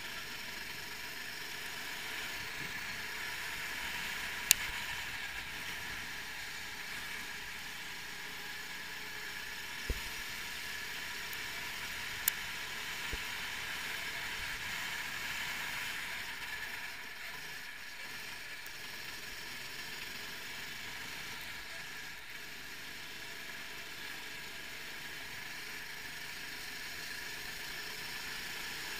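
390cc kart's single-cylinder four-stroke engine running at racing speed, heard from on board with wind and tyre noise as a steady, slightly muffled drone. A few sharp knocks sound through it.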